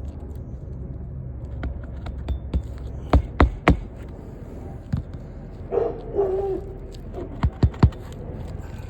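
Hammer blows nailing down a replacement asphalt shingle: three quick strikes a little over three seconds in and three more near the end, over a low steady rumble.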